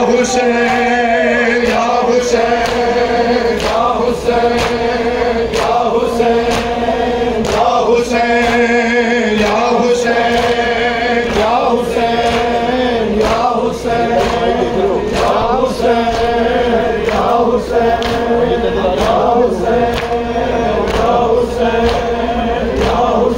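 A crowd of men chanting a noha (Muharram lament) together, with rhythmic chest-beating (matam) keeping a steady beat.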